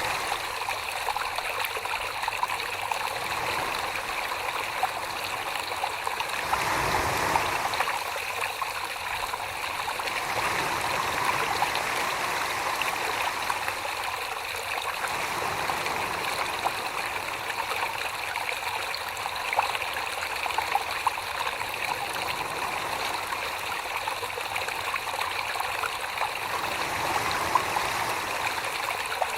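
Steady wet trickling and swishing of water and clay slurry in pottery throwing, with a brief swell about a quarter of the way in.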